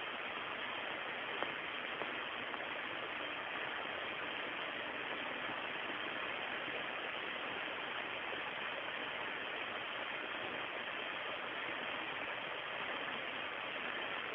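Steady hiss of an open radio audio feed, cut off sharply above about 4 kHz, with a faint click about a second and a half in.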